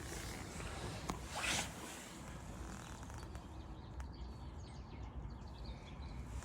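Faint outdoor background with a small click about a second in, followed by a brief rustling scuff.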